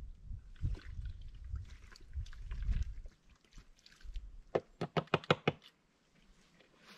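Rocks being handled and set in place around a dugout entrance: low scraping and bumping, then a quick run of about six sharp knocks.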